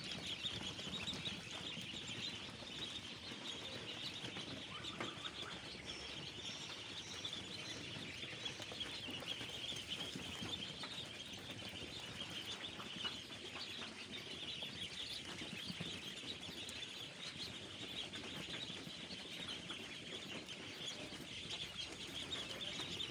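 A brood of many ducklings peeping continuously, a dense chorus of overlapping high-pitched peeps with no break.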